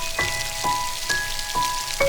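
Soft lullaby melody of struck, ringing notes, about two a second, over a steady patter of rain.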